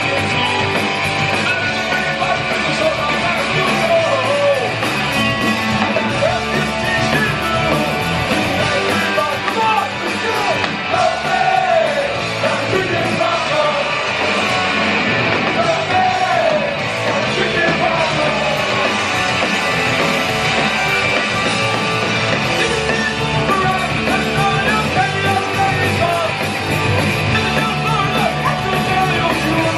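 Live punk rock band playing loudly: electric guitars, bass and drums under a shouted, sung lead vocal.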